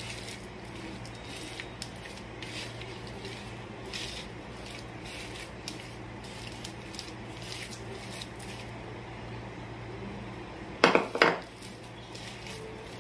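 A hand squishing and rubbing cornflour into a soft mashed potato and noodle dough on a ceramic plate, with light rustles and scrapes on the plate. A louder double clatter of hard things comes about eleven seconds in.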